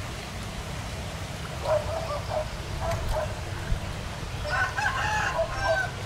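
Domestic fowl calling: short clucking calls about two and three seconds in, then a rooster's longer crow in the second half. A low steady rumble runs underneath.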